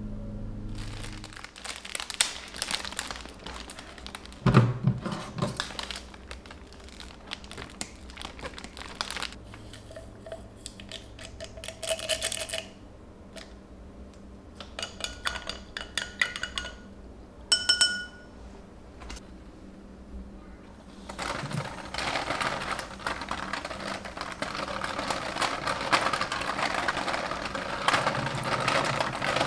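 Light crinkling and handling knocks, then a few ringing glass clinks, then from about twenty seconds in a kitchen faucet running water into a stainless steel sink as a hydrangea bouquet is rinsed under the stream.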